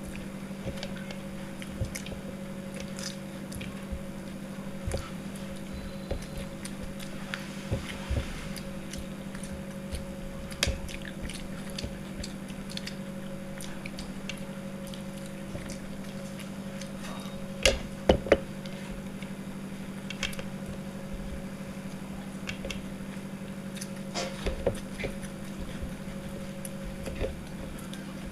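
People chewing and biting food, with scattered small clicks and taps, over a steady low electrical hum. A few sharp clicks about 18 seconds in are the loudest sounds.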